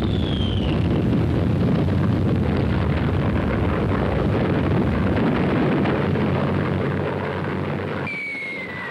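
Salvo of artillery rockets launching: a continuous loud rushing roar that fades over the last couple of seconds. A high falling whistle sounds in the first second and another near the end.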